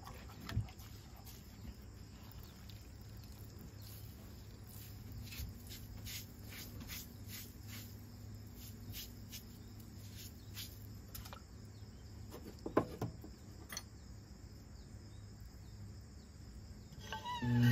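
Electric potter's wheel spinning with a faint steady hum, under scattered faint high ticks and two sharper clicks about three-quarters of the way through.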